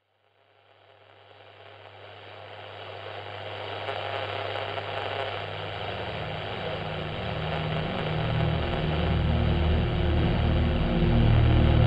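Electronic soundtrack music fading in from silence and slowly swelling: a low steady drone under a dense, hissing wash, with a low pulsing bass coming in about eight seconds in.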